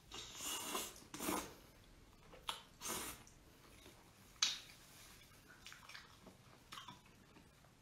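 Faint wet sucking, slurping and chewing of someone eating spicy chicken feet. There are a few short slurps and lip smacks, with a sharper click about four and a half seconds in.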